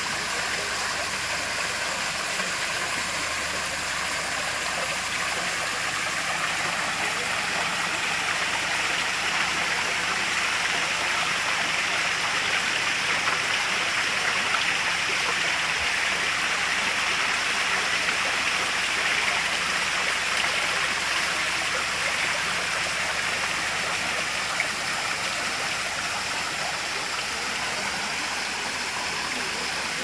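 Small rock-garden waterfall, water falling in thin streams over stacked rocks and splashing steadily.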